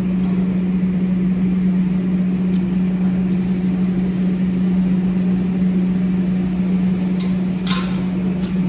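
Loud steady machine hum with a low droning tone, the running of kitchen equipment such as a fan or burner. A few light clinks, the first about two and a half seconds in and a couple more near the end, from a ladle against the steel biryani pot.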